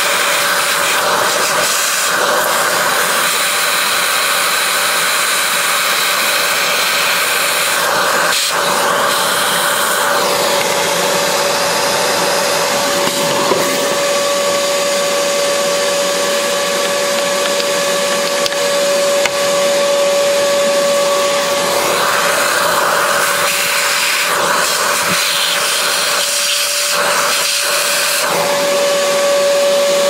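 Shop vacuum running steadily, its narrow nozzle sucking loose coffee grounds out of a coffee grinder's burr chamber. A steady tone in its sound grows stronger about ten seconds in.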